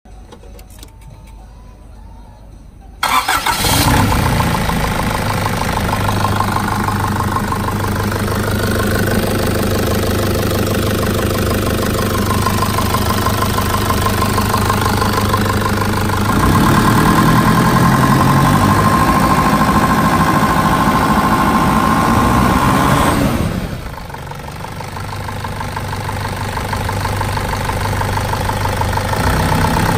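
Nissan ZD30 3.0-litre four-cylinder turbo-diesel starting up about three seconds in and settling into a steady idle. It runs louder for several seconds past the middle, drops suddenly, then slowly grows louder again near the end.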